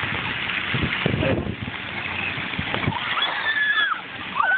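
Splash pad fountain jets spraying water in a steady hiss, with a few short, high-pitched children's shouts in the last second and a half.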